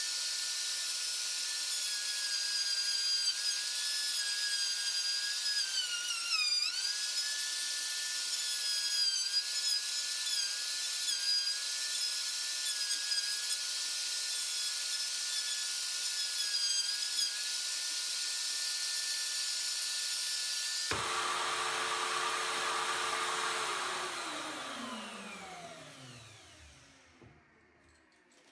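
Electric wood router in a homemade duplicating machine, running at high speed with a steady high whine that sags briefly as the bit cuts into wood, most deeply about six seconds in. About 21 seconds in it is switched off and winds down, its pitch falling as it fades away.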